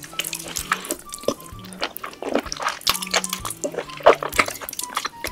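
Wet slurping and smacking of a person sucking raw live octopus tentacles into the mouth: many short, irregular wet clicks, over soft background music.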